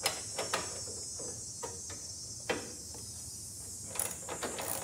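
Scattered light clicks and taps of a socket wrench and hands working on a snow thrower's plastic engine shroud as its bolts come out. The sharpest click comes about halfway through, and a quicker run of clicks near the end.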